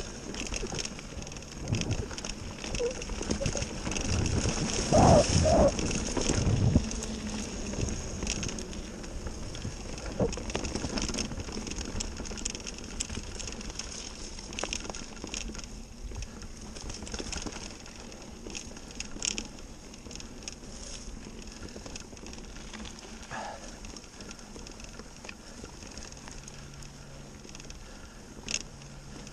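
Mountain bike riding along a leaf-covered dirt trail: tyres rolling over dirt and dry leaves, with scattered clicks and rattles from the bike. A louder rush about five seconds in.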